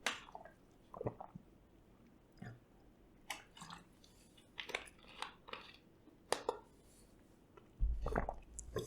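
Faint, irregular clicks and wet smacks close to the microphone, about a dozen scattered through the pause, with a brief low bump near the end.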